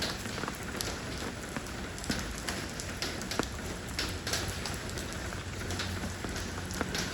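Steady rain falling on stepping stones, a constant hiss with many single drops striking as sharp little ticks.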